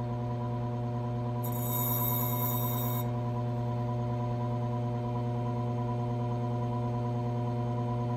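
Electric motor of a bench grinding/lapping disc running with a steady hum. About a second and a half in, a brief high grinding hiss lasting about a second and a half as the small steel sleeve on its pegwood is touched to the spinning disc.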